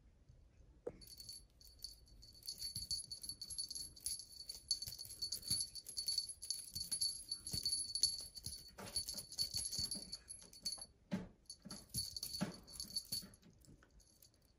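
Small jingle bell on a cat wand toy jingling steadily as the toy is jiggled and batted, with light rattling clicks; it pauses briefly about 11 seconds in, then jingles again. A few dull thumps come near the end.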